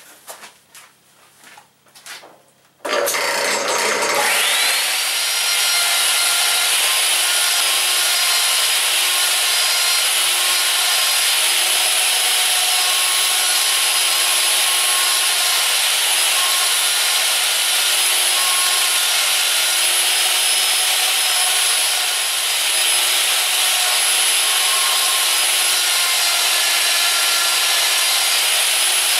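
A few faint knocks, then about three seconds in an electric wood router starts with a rising whine and runs steadily at speed, cutting into a wooden bat blank as it is traced along a bat duplicator.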